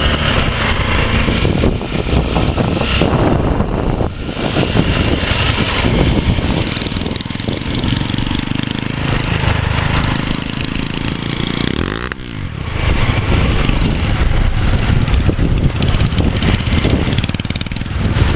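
Motorcycle engine running while riding, loud and steady, dipping briefly about four and again about twelve seconds in.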